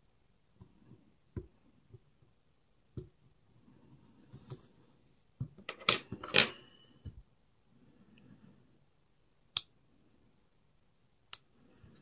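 Lock-picking tools working inside a Robur 2391 safe deposit box lock: scattered light metallic clicks, a louder burst of clicking and scraping around the middle, then two sharp single clicks near the end.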